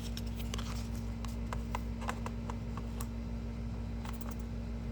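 Irregular light clicks and ticks made close to the microphone, several a second and unevenly spaced, over a steady low hum.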